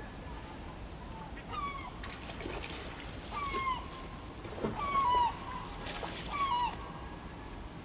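Gulls giving short calls that slide downward in pitch, four or five in all, over the steady rush of the Brooks River falls.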